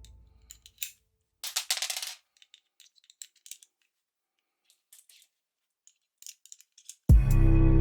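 Toy gun being handled: scattered small mechanical clicks, with a quick rattling run of clicks about two seconds in. Loud music with a beat starts near the end.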